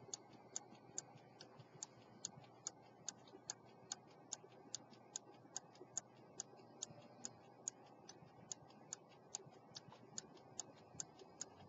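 An 18th-century London silver pocket watch with a verge escapement and chain fusee, ticking steadily and faintly, about two and a half crisp ticks a second: the restored movement is running.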